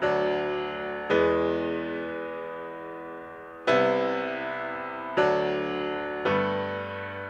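Outro music: five sustained keyboard chords with a piano-like sound, each struck and left to ring and die away slowly.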